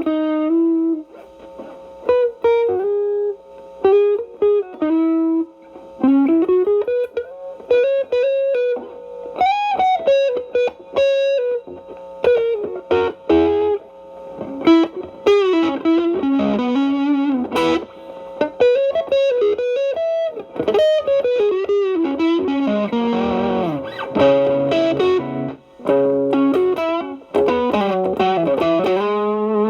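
Stratocaster electric guitar playing improvised blues lead lines through an Xotic BB Plus preamp into a Marshall Valvestate amp, with the preamp's B-channel gain set low. The lines are single-note phrases with string bends and vibrato, and there are a few denser chordal passages past the middle.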